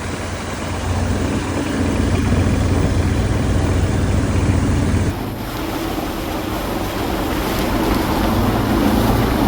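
Boat motor running steadily under a loud rush of wind and water noise. The sound changes abruptly about halfway through.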